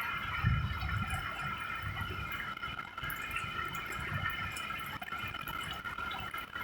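Thunderstorm rain dripping and pattering on a car, with gusting wind buffeting low underneath and a steady high-pitched tone.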